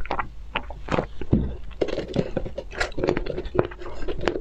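Close-miked mouth sounds of eating and drinking: a sip and swallow from a glass, then wet chewing with many sharp irregular clicks and smacks.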